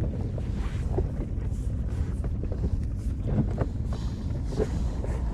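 Wind rumbling steadily on the microphone, with a few faint knocks.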